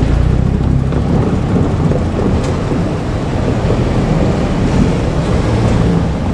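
JR Kyushu 817 series electric train rolling past close by: a steady low rumble with a single sharp click about two and a half seconds in.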